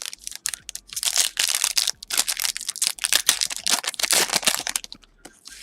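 Plastic wrapper of a trading card pack crinkling and tearing as it is opened by hand, a dense crackle for about four seconds.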